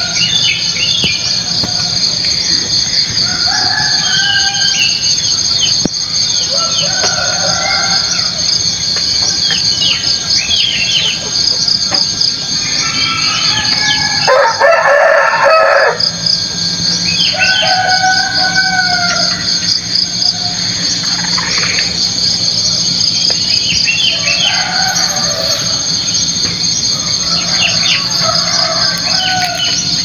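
A rooster crows once about halfway through, the loudest sound, over a steady, fast-pulsing, high-pitched insect chorus. Other birds call in short, scattered phrases throughout.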